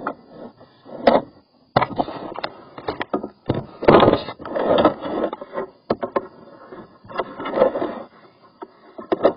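Irregular scraping, clicking and knocking as a drain inspection camera's cable is fed into a sink drain pipe, with several sharp knocks and a louder stretch of scraping about four to five seconds in.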